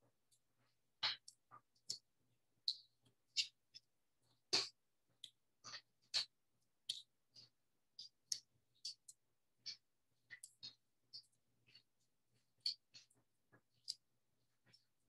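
Faint, irregular small clicks and ticks, roughly two a second, of foam adhesive pop dots being peeled off their backing sheet and pressed onto a paper sticker piece.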